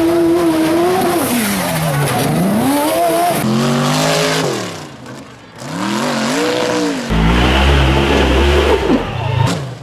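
Off-road side-by-side and rock bouncer engines revving hard in short clips, the pitch sweeping up and down again and again as the throttle is worked on steep climbs. A deeper engine rumble comes in about seven seconds in.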